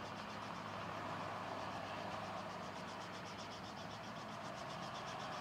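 Small tour helicopter idling on the ground with its main rotor turning, a steady engine and rotor hum heard from a distance.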